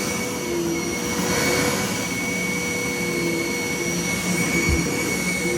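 Vacuum cleaner running steadily: an even rush of air with a constant motor whine.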